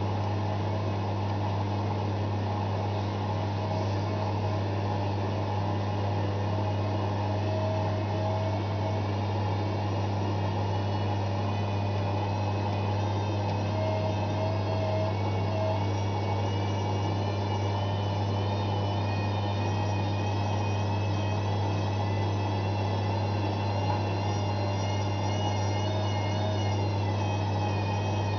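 Zanussi ZWF 1621 W washing machine on a high-speed spin, running with a steady low hum and a high-pitched motor whine that dips slightly near the end.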